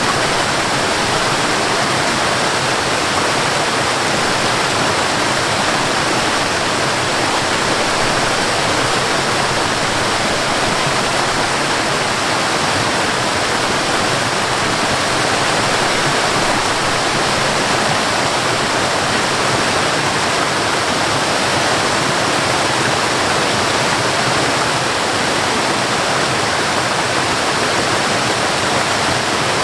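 Waterfall pouring steadily: a continuous, even rush of falling water with no breaks or changes.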